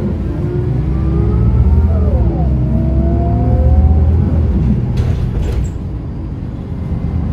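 MAN NM 243 city bus accelerating, heard from inside: the MAN D0836 six-cylinder diesel and ZF Ecomat automatic gearbox whine rise in pitch, drop with an upshift right at the start and again about two seconds in, then climb once more and ease off after about four and a half seconds. A short hiss about five seconds in.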